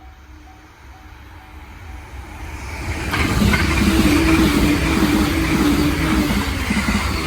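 Joban Line train rushing through a level crossing at high speed, its noise swelling and jumping sharply about three seconds in, then staying loud. The crossing's warning bell rings at a steady repeating pace at first, soon buried under the train.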